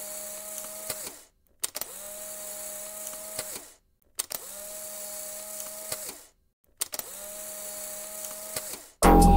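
Electric tattoo machine switched on with a click, humming steadily for about two seconds, then winding down and clicking off, repeated identically about every two and a half seconds as a looped sound. Loud music comes in near the end.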